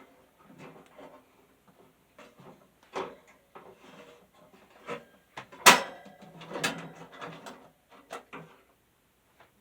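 Irregular clicks, knocks and rattles of box fan parts being handled and set down during disassembly, with one sharp knock about six seconds in.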